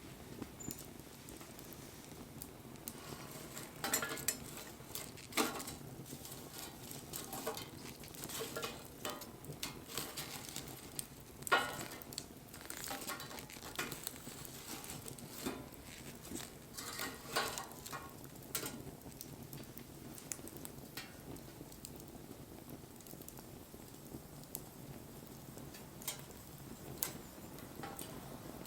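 Wood fire crackling, with irregular pops and snaps over a low hiss; the snaps come thickest in the first half and thin out near the end.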